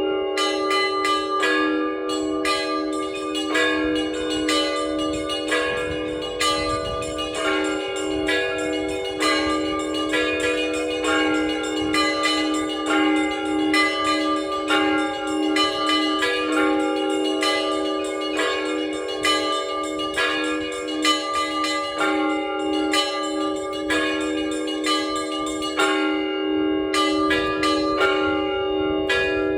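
Cathedral bells rung in the Orthodox manner: a continuous run of quick strikes on several small, high bells over the steady ringing of a deeper bell.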